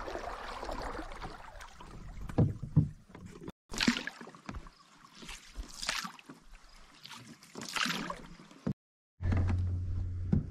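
Canoe paddle strokes in calm water, a sharp splash about every two seconds, with a couple of low knocks early on. A steady low hum comes in near the end after a short dropout.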